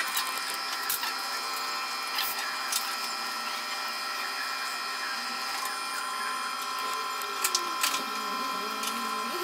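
Electric potter's wheel running with a steady whine, with a few light clicks. Its tone shifts about halfway through and wavers near the end.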